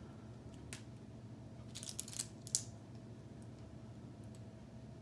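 K'nex plastic pieces clicking as they are snapped onto connectors: a single click about a second in, then a quick cluster of clicks around two seconds in, over a steady low hum.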